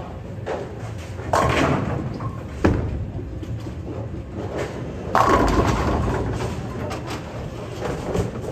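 Bowling alley sound: a low rumble of balls rolling, with pins crashing twice, about a second in and again about five seconds in, each fading over a second or so. A single sharp knock falls between the two crashes.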